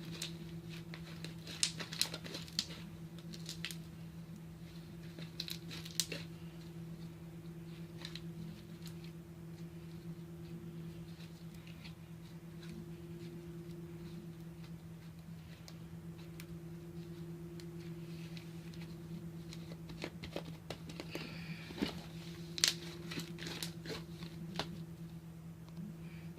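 Fluffy glue-and-shaving-cream slime being stretched and swirled by hand: scattered sticky crackles and small pops, busiest near the start and again towards the end, over a steady low hum.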